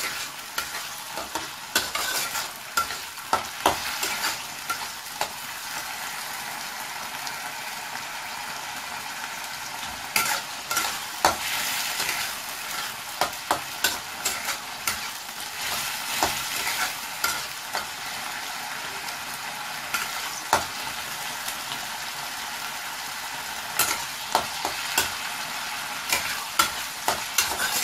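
Boiled bottle gourd sizzling in oil in a pan while a spatula stirs it, scraping and tapping against the pan in irregular clusters, with stretches of steady sizzling in between.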